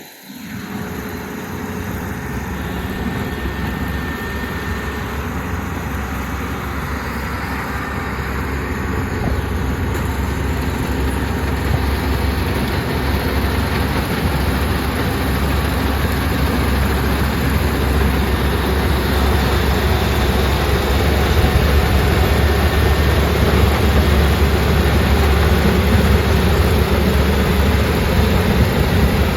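Rice combine harvester running steadily, a dense mechanical din with a deep low rumble, growing gradually louder over the whole stretch.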